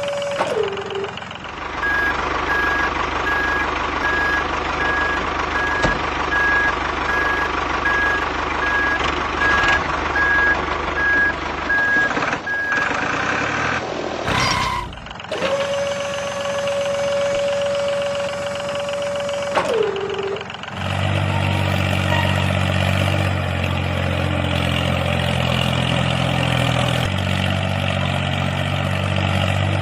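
Heavy-vehicle reversing alarm beeping about twice a second over machine noise, then a low engine running steadily. Near the start and again about two-thirds through, a held tone drops in pitch and cuts off.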